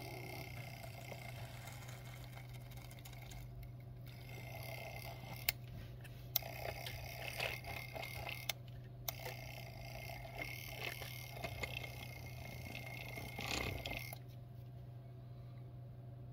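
Thin cutting wire being drawn under the cracked front glass of a Redmi 10C display, scraping and crackling as it cuts through the adhesive between the glass and the screen, with a few sharp ticks and two short pauses; it stops near the end. A steady low hum sits underneath.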